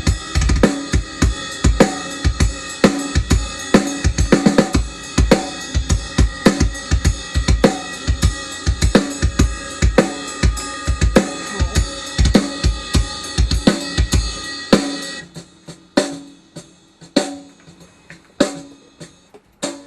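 Drum kit playing a steady beat, with kick and snare hits under a continuous cymbal and hi-hat wash. About fifteen seconds in the cymbals stop and only scattered drum hits remain.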